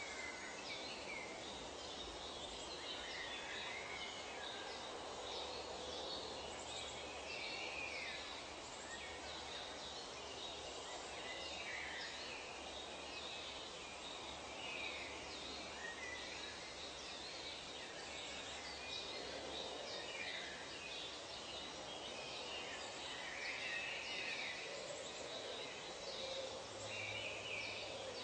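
Tropical nature ambience: a steady background hiss with many short bird calls and chirps scattered all through.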